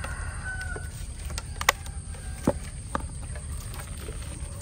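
Eel trap being handled and emptied: a few sharp knocks and clatters, the loudest about halfway through, over a steady low rumble.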